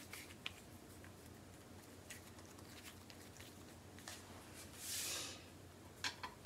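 Faint, soft handling sounds of a filled dough roll being shaped between the hands for lazy manty, with a brief rustling hiss about five seconds in. A couple of light clicks come near the end as the roll is set down on a plate.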